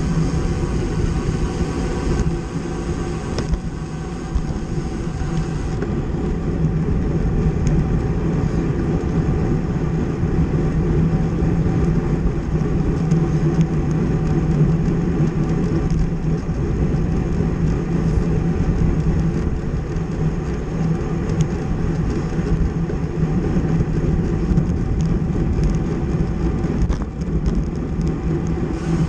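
Wind rushing over the microphone of a camera riding on a racing bicycle, with road and tyre noise and a steady low hum.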